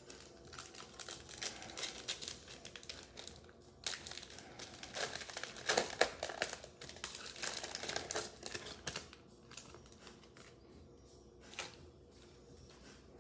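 Plastic wrapper of a football trading-card pack being torn open and crinkled, a dense crackling rustle for most of the first nine seconds, then a single sharp click near the end.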